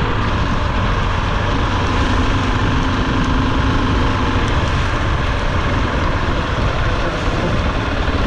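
Motorcycle engine running steadily at an even pace, mixed with a steady rush of wind and rain noise.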